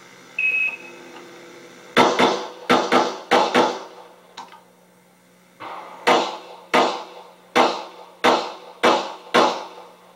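Shot timer's start beep, then rapid pistol fire from a Glock 21 in .45 ACP: a quick string of about six shots, a pause of about two seconds, then about seven more at a steady pace.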